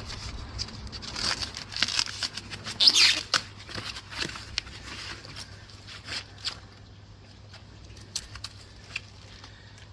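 Protective packaging wrapping being pulled and torn off a new e-bike: irregular rustling with sharp crinkles and clicks, loudest about three seconds in and dying down after about seven seconds.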